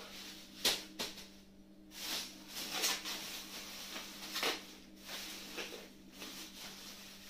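Thin clear plastic bag crinkling and rustling in irregular bursts as dry pasta is packed into it by hand, over a steady low hum.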